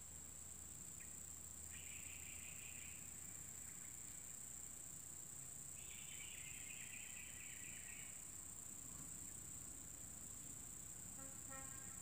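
Faint, steady high-pitched drone of insects such as crickets. Two buzzy trills of a second or two each come about two seconds in and about six seconds in, and a short pulsing call sounds near the end.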